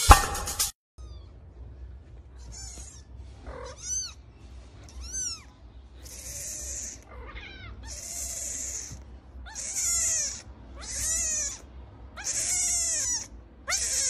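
Kitten meowing over and over: about ten high-pitched, arching cries, longer and louder toward the end. A brief snatch of drum music at the very start.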